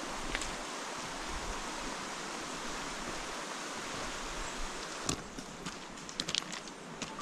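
Steady rushing of a mountain river over its gravel bed. From about five seconds in, a run of footsteps on a trail.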